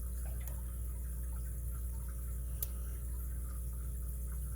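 A lock pick scraping and clicking inside a brass padlock's keyway: a couple of faint sharp clicks, one about half a second in and one past the middle, over a steady low hum.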